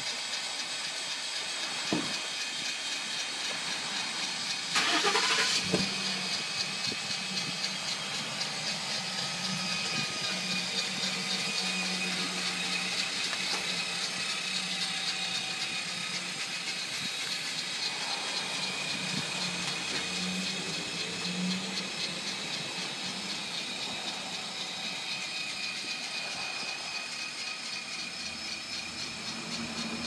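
Zip Dee Relax 12-volt power awning's electric motor running steadily as the awning extends and its arms lift, a steady motor whine. A few clicks about two and six seconds in, and a brief louder burst of noise about five seconds in.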